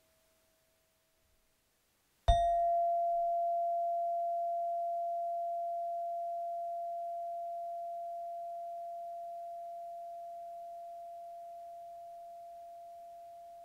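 One strike on a tuned metal bar of a set of chakra chimes, about two seconds in, ringing a single pure tone that fades very slowly. Just before it, the faint tail of the previous, slightly lower chime dies away, as the chimes are played note by note up the chakras.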